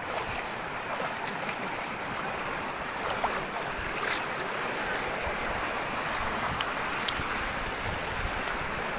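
Steady rushing noise of wind on a phone's microphone, with a few faint clicks.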